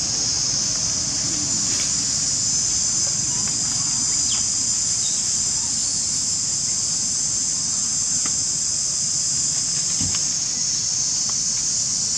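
Insect chorus, a steady high-pitched drone without a break, with a few faint clicks over it.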